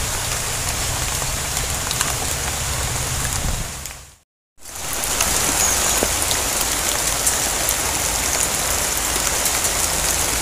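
Steady rain falling on a pond and the plants around it, an even hiss of raindrops with scattered small drips. The sound cuts out briefly about four seconds in, then comes back.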